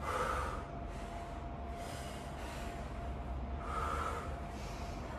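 A woman breathing hard from exercise: three heavy exhalations, about two seconds apart.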